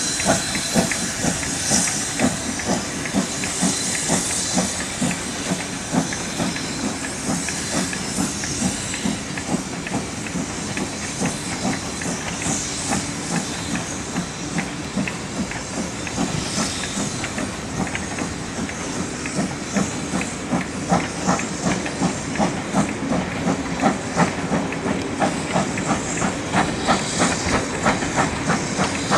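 BR Britannia class 4-6-2 steam locomotive 70013 Oliver Cromwell, a two-cylinder engine, pulling away with its train: rhythmic exhaust beats from the chimney over a steady hiss of steam. The beats grow louder and more regular in the second half as it gets under way.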